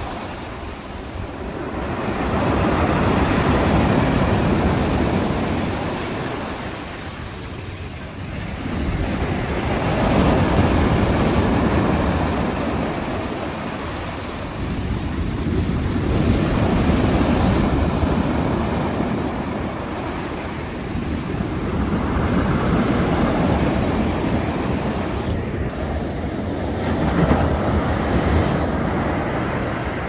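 Rough sea surf breaking on the shore, the roar swelling and ebbing with each wave about every six seconds.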